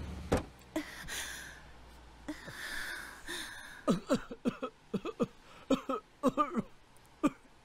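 A thump just after the start, a couple of breaths, then a man coughing in a run of short, sharp coughs from about four seconds in.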